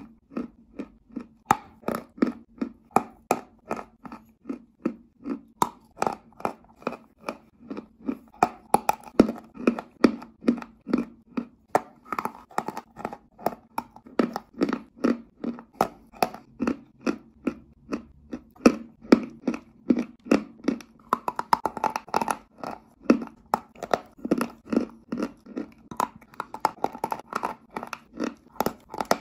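Sticks of chalk being bitten and chewed: a steady run of dry crunches, about two a second.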